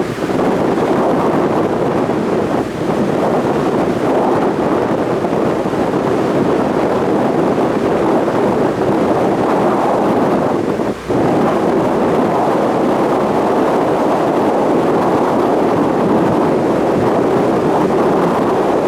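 Steady rush of wind on the microphone over the running noise of a boat on open water, with one short dip about eleven seconds in.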